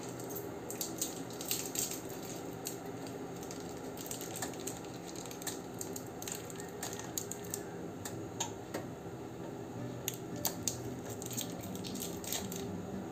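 Water simmering in a covered stainless steel pot: a steady hiss with scattered small pops and ticks from bubbles bursting under the lid.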